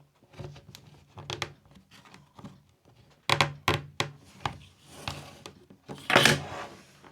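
Plastic tablet casing being pried apart with a thin tool: scattered clicks, taps and scrapes, a cluster of louder clicks about three and a half seconds in and a short loud scrape a little after six seconds.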